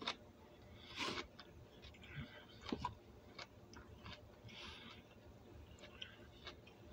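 Someone eating broccoli: faint scattered mouth clicks and crunches of chewing, with a few sharper ones in the first three seconds.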